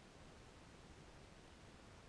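Near silence: a faint, even hiss of room tone or microphone noise.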